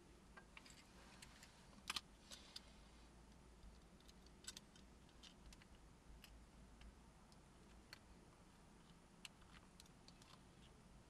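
Faint, scattered small clicks and taps of a broken plastic car key being handled and fitted back together by hand.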